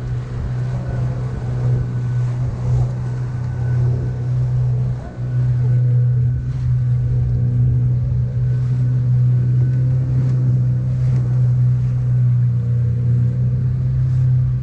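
A small tour boat's engine running steadily under way, a loud, even hum that briefly dips about five seconds in.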